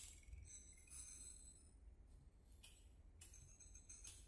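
Near silence: a faint low rumble with faint high tinkling and a few soft, short swishes.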